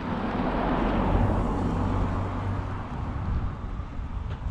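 A motor vehicle running, with a steady low engine hum and a swell of noise that peaks about a second in and then eases off.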